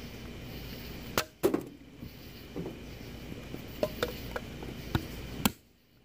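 Wood fire crackling inside a titanium tent stove: a steady rush with sharp pops and cracks scattered through, the loudest between one and two seconds in. The sound drops away briefly near the end.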